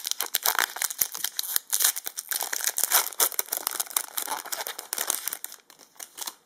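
Foil wrapper of a Yu-Gi-Oh! booster pack crinkling and being torn open, a dense run of crackles that thins out near the end.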